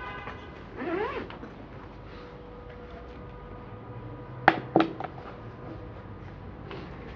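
Quiet room tone with a short squeak about a second in, then two sharp knocks about a third of a second apart a little past the middle.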